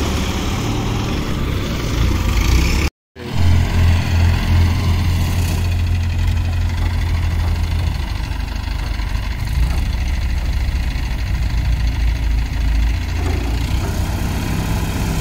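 Diesel engines of ACE Hydra 14XW mobile cranes running steadily with a deep, low rumble during a lift. The sound cuts out for a moment about three seconds in.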